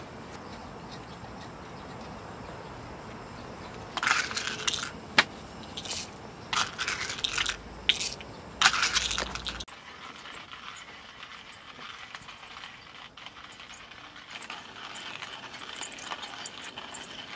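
Clinking and rattling of small hard objects being handled, in several bursts with sharp clicks. It is followed, after an abrupt change, by a quieter background with faint short high-pitched chirps.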